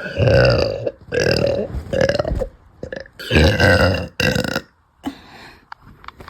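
A woman burping loudly from soda gas, five belches in a row with short pauses between them, the last two close together.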